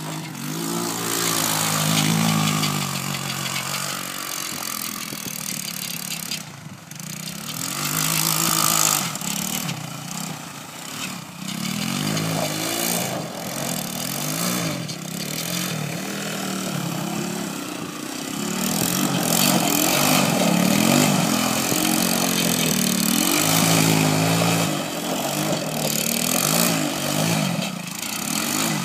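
Honda ATC200X three-wheeler's single-cylinder four-stroke engine revving up and down again and again as it spins donuts on snow and ice.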